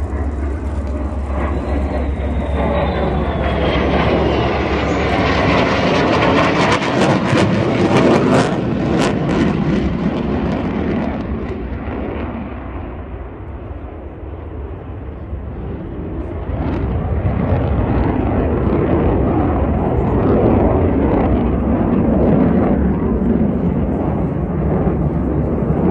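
Loud jet engine noise from a pair of fighter jets passing overhead. It builds to a peak several seconds in, eases off about halfway through, then swells again as they come back around.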